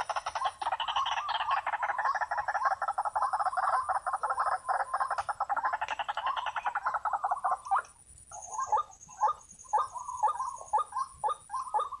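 White-breasted waterhen calling: a fast run of croaking pulses for most of the time, breaking about eight seconds in into separate short 'kru-ak' notes about three a second.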